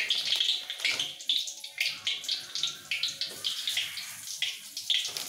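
Nuggets frying in hot oil in a wok, a steady sizzle broken by many small crackling pops.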